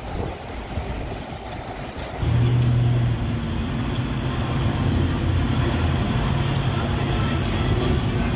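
Uneven outdoor rumble, then about two seconds in a steady, low machine hum sets in abruptly, like a running engine.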